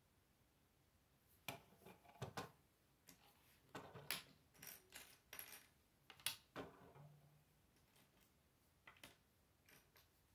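Faint clicks and clatter of plastic Lego pieces being handled, pressed together and set down on a wooden table: a scattered run of small sharp clicks and knocks, most of them in the first two-thirds, with a few more near the end.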